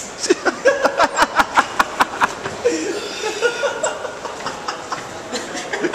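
Hearty laughter in a quick run of 'ha-ha' pulses, about five a second, that tails off into looser chuckling, with another burst of laughter near the end.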